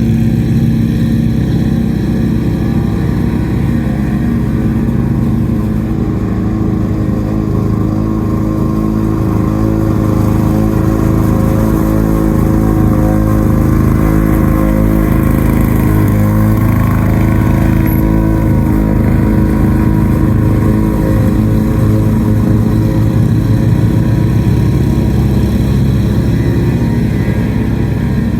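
Lawn-Boy 8073 push mower's two-stroke engine running steadily under mowing load, its pitch rising and dipping a little.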